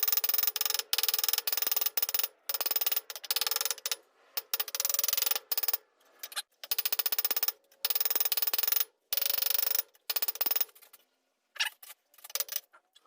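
A hand tool worked in strokes against steel: each stroke is a fast rattle of tiny clicks lasting about a second, repeated with short pauses, then a longer pause near the end.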